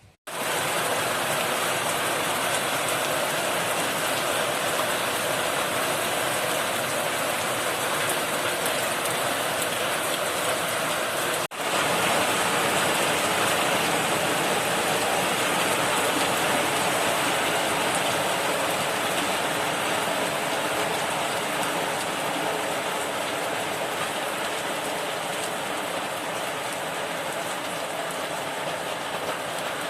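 Heavy rain falling steadily in a downpour, a loud even hiss of drops, with a momentary break about a third of the way in.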